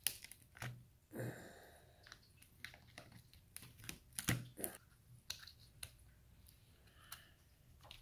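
Hard plastic clicking and snapping in irregular small cracks, with a short scrape about a second in, as broken remnants are picked and pried out of the inside of a small plastic box.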